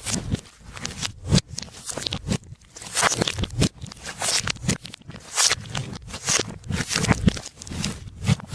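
Hands kneading and stretching glossy slime: uneven sticky bursts and pops, several a second.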